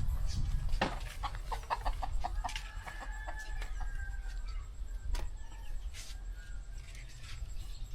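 Chicken calling: a quick run of short clucks, then a long drawn-out note about two and a half seconds in.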